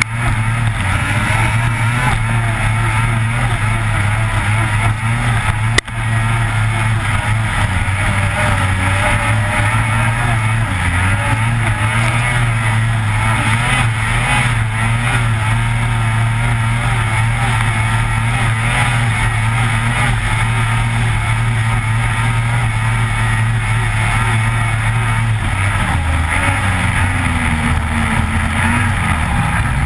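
Lynx Rave RE 600 snowmobile's two-stroke engine running hard along a bumpy trail, its pitch rising and falling as the throttle comes on and off. A brief sharp break comes about six seconds in.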